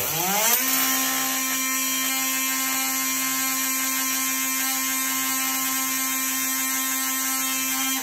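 Ryobi cordless oscillating multi-tool running with no load: a loud, steady buzz that rises in pitch for about half a second as it spins up, then holds, and drops away as it is switched off at the end. It vibrates heavily as it stands on a cast iron table saw top.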